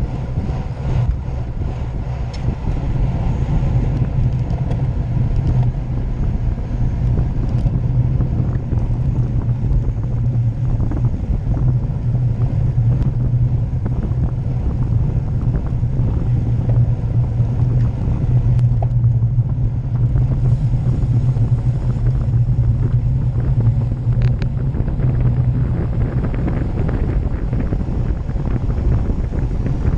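Wind buffeting an action camera's microphone on a road bike moving at speed, over the low steady rumble of tyres on asphalt. The low rumble eases near the end.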